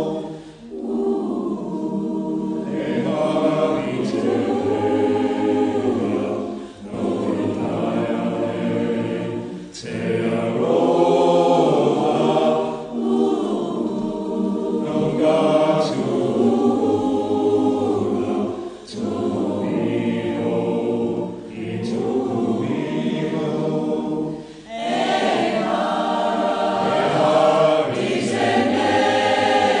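A choir of several voices singing together in long phrases of a few seconds each, with brief pauses between them.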